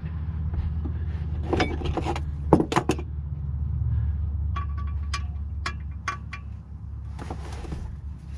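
Metal tools and parts clinking and knocking in short clusters during drivetrain work under a car, over a steady low hum.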